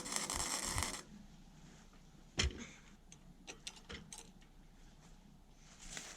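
A harsh hissing, crackling workshop noise that cuts off suddenly about a second in. It is followed by one sharp knock and a series of light metallic clicks and rattles.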